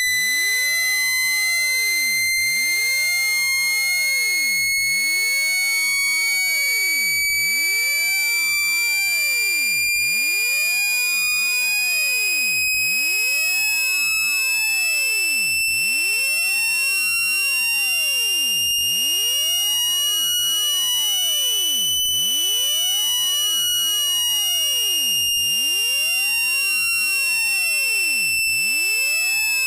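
Generated speaker-cleaning tone, the kind played at full volume so the phone speaker vibrates out dust and water: one continuous high-pitched electronic tone that glides slowly upward in pitch, peaks about three-quarters of the way through, then falls back a little.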